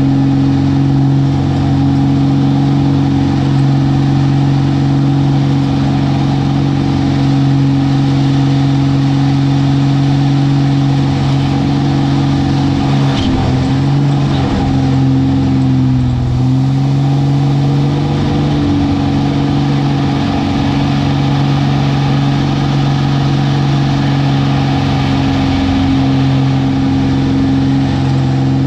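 Aerobatic airplane's engine running steadily, heard from inside the cockpit. About halfway through its pitch sags and wavers for a few seconds during a manoeuvre, then comes back up to a steady drone.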